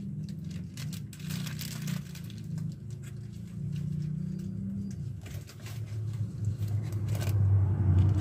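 Plastic packets of groceries crackling and rustling as they are handled and lifted out of a cardboard box. Underneath is a steady low hum like a running motor, which drops in pitch about halfway through and grows louder near the end.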